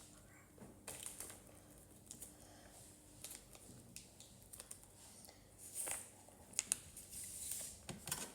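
Hands arranging bread and cheese on a plate: faint rustles and light clicks and taps, with two sharper ticks a little after six seconds in.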